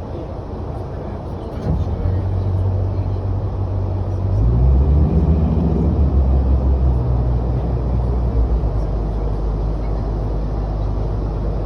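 Riverboat engine running with a low steady hum, picking up about two seconds in and again about four seconds in as it revs up with a rising pitch, then settling to a steady run.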